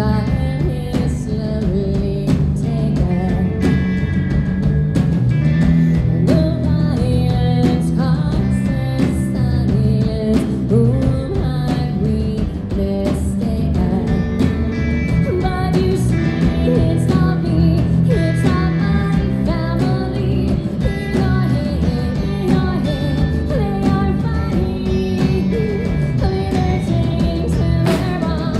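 A band playing live, with a woman singing lead through a microphone over drums and backing instruments.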